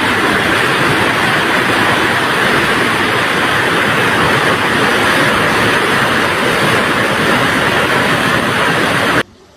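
Loud, steady rushing noise with no distinct events, cutting off suddenly near the end.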